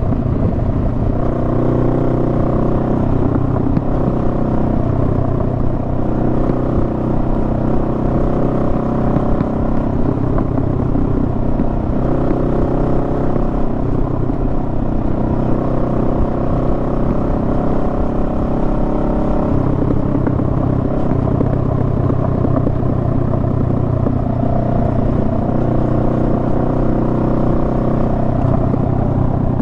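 Honda Rebel 500's parallel-twin engine running at a fairly steady road speed, its pitch drifting gently up and down, over a steady rumble of wind and road noise.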